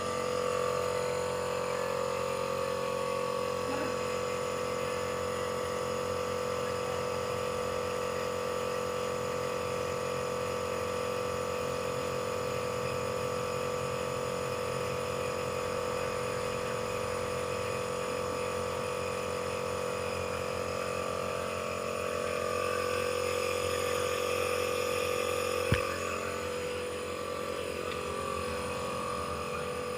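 Compressor nebulizer running with a steady hum during an inhalation treatment. A single sharp click sounds near the end.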